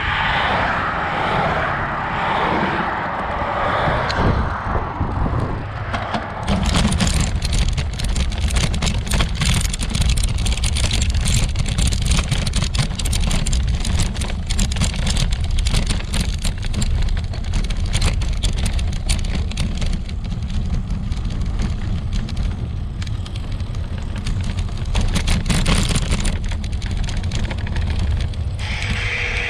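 Ride noise from a bicycle-mounted camera. At first there is a hiss of tyres and passing cars on pavement. From about six seconds in it becomes a steady low rumble with a rapid clatter of knocks as the bicycle rides over a rough dirt track.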